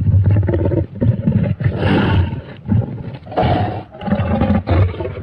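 Monster roar sound effect, pitched low: a run of about seven short guttural growling roars in quick succession, each half a second to a second long.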